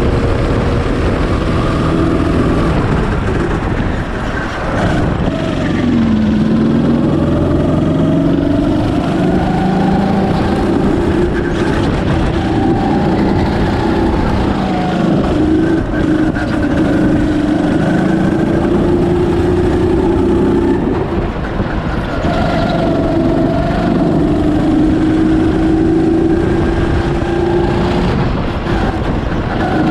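Birel N35 rental go-kart's single-cylinder engine at full running on track, its pitch falling off and climbing again as the kart slows and accelerates, most clearly about four seconds in and again around twenty-one seconds.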